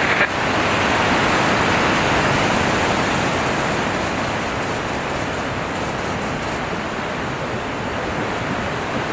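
Ocean surf and wind: a steady, even rushing noise that eases a little toward the end.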